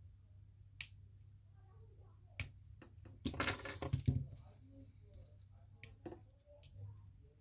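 Sharp clicks and small knocks of parts inside a Shocker XLS paintball marker being handled while the solenoid is worked loose, with a dense run of rattling clicks about three seconds in, over a low steady hum.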